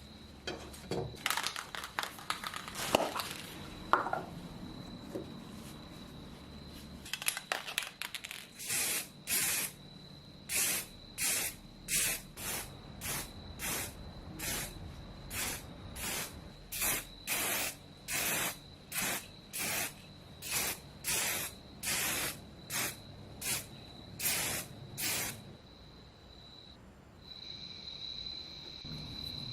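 Aerosol spray can hissing in more than twenty short, evenly spaced bursts, about one and a half a second, after a few seconds of scattered handling clicks and rustles.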